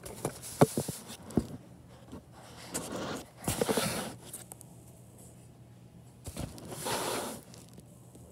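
Hands fumbling with a phone camera as it is repositioned: a few knocks and clicks in the first second or so, then fingers rubbing and scraping against the microphone, loudest about three and a half seconds in and again near seven seconds.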